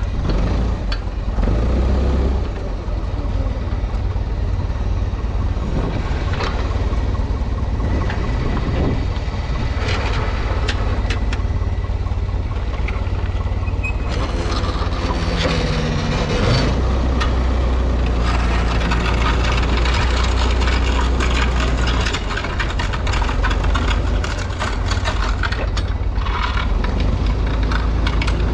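An old forklift's engine runs steadily under a heavy load, with scattered knocks and rattles. About two-thirds of the way in it revs up and runs harder for several seconds, then eases off.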